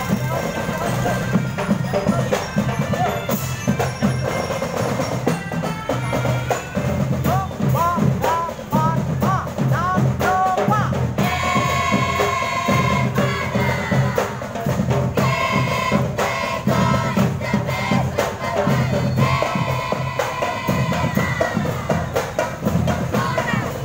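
Marching band playing on parade: bass and snare drums keep a steady march beat, with a melody line that comes in louder about eleven seconds in and returns in phrases.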